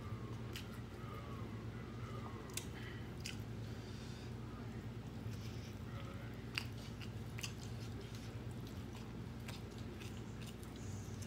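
Close-up eating sounds: a person chewing food eaten by hand, with about half a dozen sharp mouth smacks or clicks scattered through. A steady low hum sits underneath.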